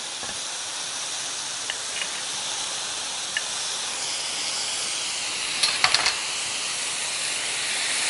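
Beef chuck steaks sizzling on a hot flat-top griddle, a steady hiss, with a short cluster of clicks about six seconds in.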